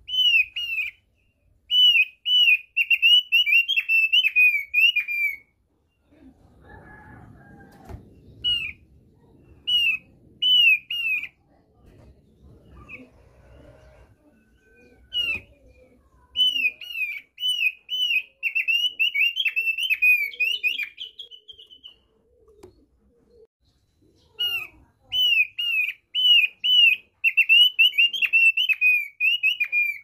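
Thick-billed heleia (opior paruh tebal) singing its basic song: rapid strings of high, down-slurred whistled notes in several long phrases with short pauses between them. A soft rustle fills one pause.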